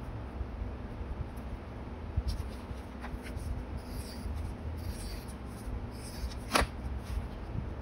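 Paper being handled and smoothed on an open notebook, with soft crinkling rustles in the middle and one sharp click or tap about six and a half seconds in, over a low steady hum.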